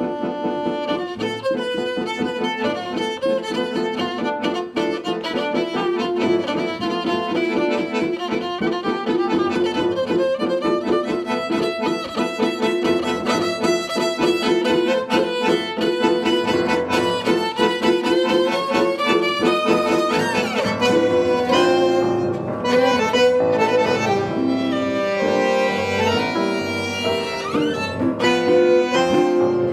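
Tango quartet playing an instrumental piece, the violin bowing the lead line over piano and electric guitar, with a few sliding notes in the second half.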